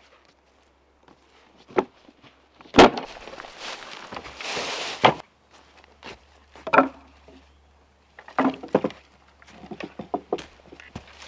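Irregular wooden knocks and thuds, the loudest about three seconds in, followed by a couple of seconds of scraping rustle, then more knocks and a run of light taps near the end.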